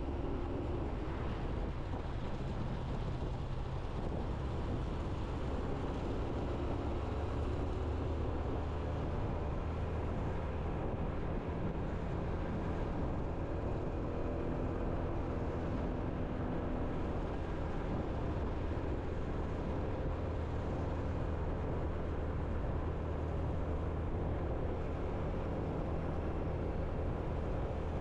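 Motorbike engine running at a steady cruise, with continuous road and wind noise from the ride.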